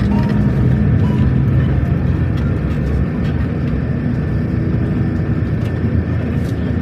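Engine and road noise of a moving vehicle, heard from inside as a steady low rumble.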